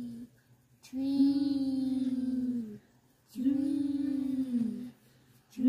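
A person singing a run of long held notes, each about two seconds with short pauses between, each sliding down in pitch at its end.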